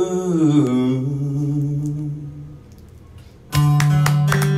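Solo acoustic guitar and male voice: a sung note slides down and fades over a ringing guitar chord, then after a short lull, about three and a half seconds in, the guitar starts a loud, quick strummed chord.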